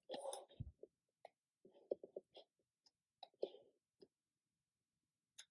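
Faint, irregular clicking from a computer being operated by hand: about a dozen soft, separate clicks over the first four seconds, and one more near the end.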